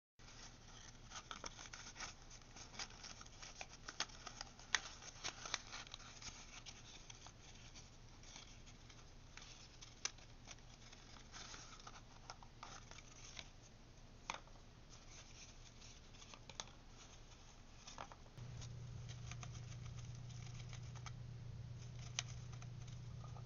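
Bushy-tailed jirds scratching and gnawing at a cardboard tube chew toy: a busy run of small scratchy clicks and rustles that thins out after the first half, over a low hum that grows louder about three quarters of the way in.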